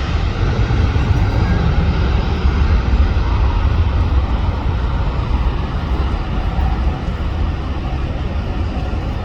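Jet airliner engine noise, a steady rumble with a broad hiss that slowly fades as the plane moves away.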